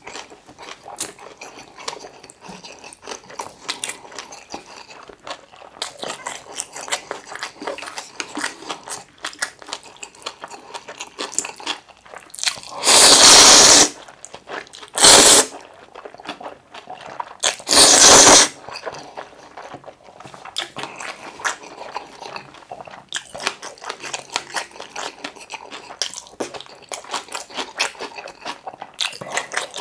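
Close-miked wet chewing with many small mouth clicks, broken by three loud slurps of curry ramen noodles: a long one about 13 seconds in, then two shorter ones near 15 and 18 seconds.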